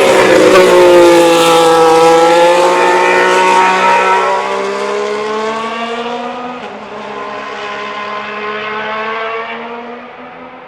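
Red Bull Ford Powertrains V6 turbo-hybrid engine of the 2026 Racing Bulls VCARB03 Formula 1 car going past close by. It is loudest about a second in, its pitch dropping as it passes, then climbing again as the car accelerates away, with a short break about six and a half seconds in, and it fades steadily into the distance.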